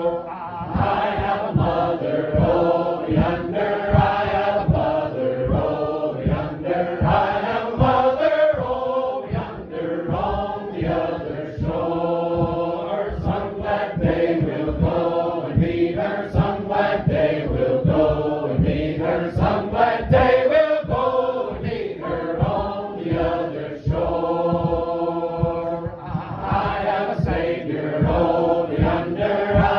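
A congregation singing a simple, repetitive hymn together, many voices at once.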